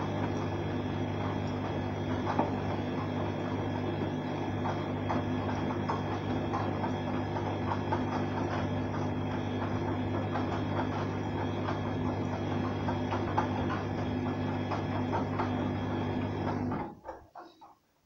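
Arçelik front-loading washing machine running in its wash phase: a steady motor hum with small clicks and knocks from the tumbling drum. Near the end it stops suddenly and dies away within about a second.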